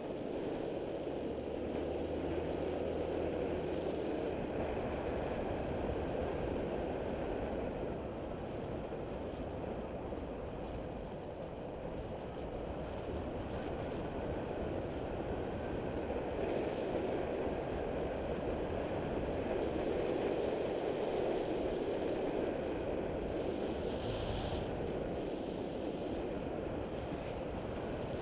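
Steady wind rush over the microphone of a moving Taotao CY150 scooter at road speed, with the scooter's engine running low underneath.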